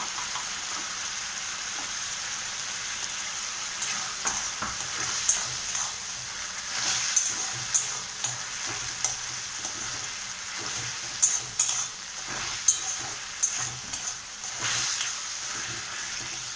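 Onion-tomato masala sizzling as it fries in a metal kadai, with salt and turmeric just added to soften the tomatoes. From about four seconds in, a metal spatula stirs it, scraping and clicking irregularly against the pan.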